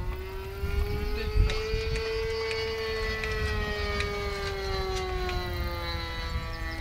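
A radio-controlled model aircraft flying some way off: a steady high-pitched drone that slowly rises a little in pitch and then sinks back over several seconds. There are a few light clicks of hand tools.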